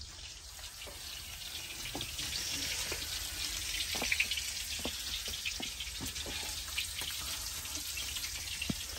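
Steady sizzling hiss with scattered small pops, typical of food frying, a little louder from about two seconds in.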